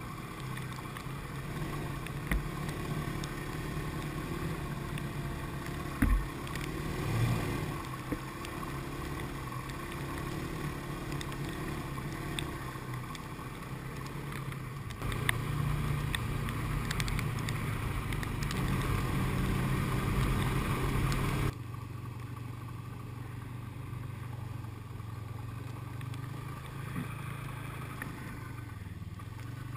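Snowmobile engine running under way, heard from a camera mounted on the machine, its note changing as the throttle varies. A sharp knock comes about six seconds in, and the sound jumps abruptly twice, midway and about two-thirds of the way through.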